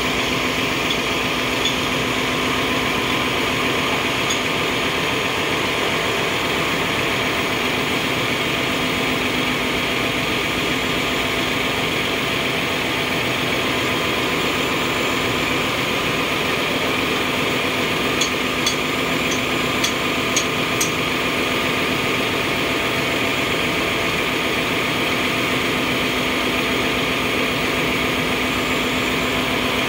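Steady drone of ship engine-room machinery with constant humming tones. About two thirds of the way through, a quick run of about six light metal taps and clinks from hand tools on the machine's parts.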